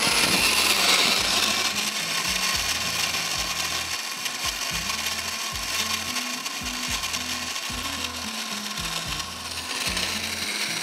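Countertop blender running steadily at high speed, crushing ice into a drink.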